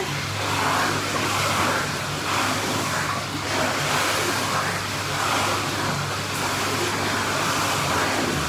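Indoor pool water churning and splashing steadily, with a low mechanical hum underneath.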